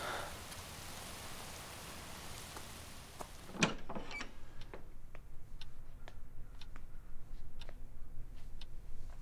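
A steady outdoor hiss, then one loud sharp knock about three and a half seconds in. After the knock a clock ticks about once a second in a quiet room.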